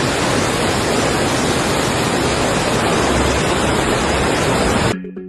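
Loud, steady rush of floodwater. It cuts off abruptly near the end, where music with pitched instrument notes begins.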